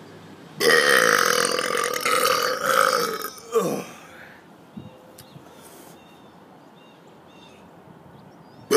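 A man's long, loud deliberate burp lasting about three seconds, starting about half a second in and ending with a quick drop in pitch.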